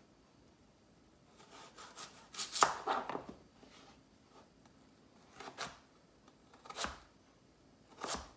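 Kitchen knife cutting through raw potatoes on a plastic cutting board. A quick run of cuts comes a second or two in, then single strokes about a second apart, each one knocking the blade against the board.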